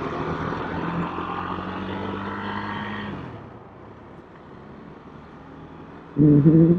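Vehicle engine and road noise while driving, louder with a steady engine tone for about the first three seconds, then easing to a lower steady rumble. A short burst of a man's voice near the end.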